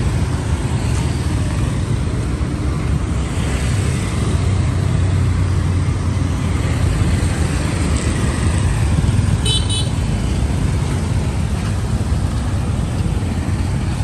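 Steady street traffic noise of motorbikes and cars passing, with a constant low rumble. About nine and a half seconds in, a brief run of short high beeps sounds, a vehicle horn tooting.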